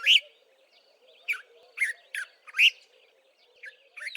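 Dark-capped bulbul calling: short, clear whistled notes that each slide downward, one near the start, a quick run of four in the middle and two more near the end.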